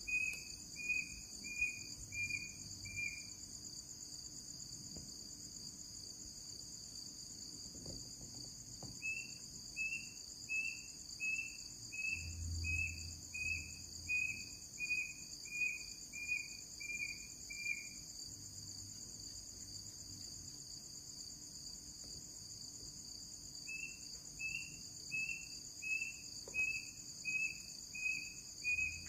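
Night chorus of crickets, a steady high drone, with a short chirping note repeated about three times every two seconds in runs that stop and start again three times.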